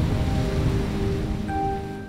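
Soft background music with long held notes fading in over a fading hiss of wind and water noise.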